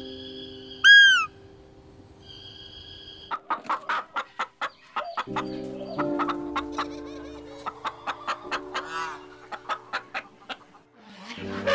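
Domestic hens clucking in quick, short calls, about three or four a second, over soft background music. Before the clucking starts, a single high arching call sounds about a second in.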